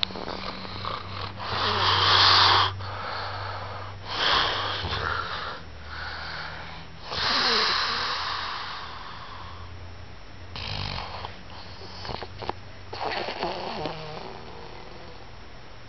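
A man snoring in his sleep: about five loud snores, roughly every three seconds. The loudest comes about two seconds in and a long, drawn-out one comes around the middle, with weaker snores near the end.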